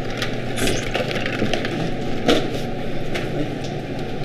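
A few light knocks and clicks as a stainless steel tray holding a loaf tin in ice water is set down and handled on a wooden cutting board, over a steady background noise.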